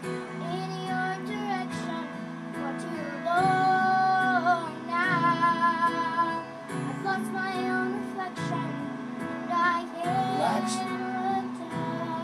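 A young girl singing a slow song over instrumental accompaniment. She holds a long note about three seconds in, then a note with vibrato soon after.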